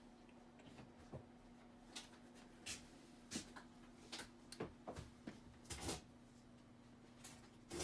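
Near silence with a steady faint hum and scattered faint clicks and taps, a cluster of them a little before six seconds in.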